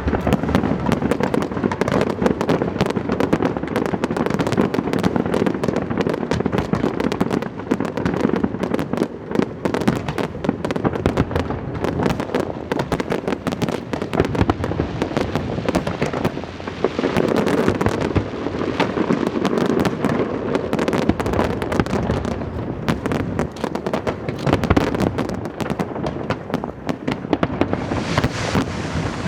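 Aerial fireworks display: a dense, continuous crackle of many small bursts mixed with heavier bangs, easing briefly a few times.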